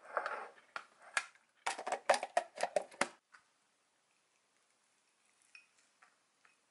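A wooden spoon clicking and scraping against a glass dessert bowl of yogurt and apple: a short rustle, then a quick run of about eight knocks in a second and a half, and a few faint taps near the end.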